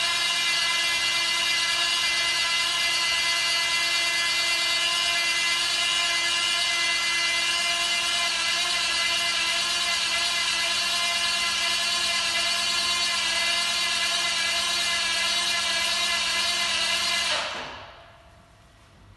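Corded electric drill driving the screw of a 2-ton car tilter, lifting one side of a car: a steady motor whine under load that stops about 17 seconds in, winding down over half a second.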